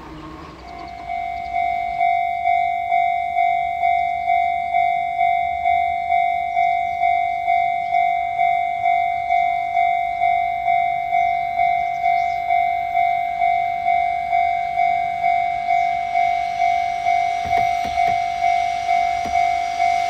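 Japanese level-crossing warning bell ringing in an even electronic clang, about two strokes a second, starting about a second in as the crossing activates for an approaching train. Near the end the noise of the oncoming freight train rises faintly beneath it.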